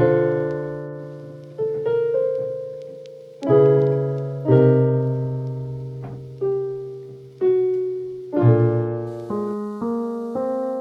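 Lo-fi keyboard music: soft piano chords struck one after another, about one to two seconds apart, each ringing out and fading before the next.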